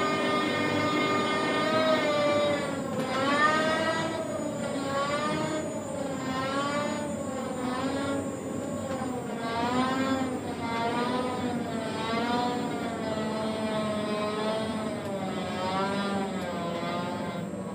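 Tower crane slewing, its drive motor whining over a steady hum. The pitch holds for about two seconds, then wavers up and down about once a second as the slewing speed changes.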